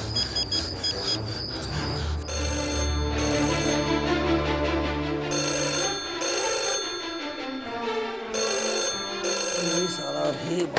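Desk telephone ringing in repeated bursts with short pauses between them, starting about two seconds in, over background music.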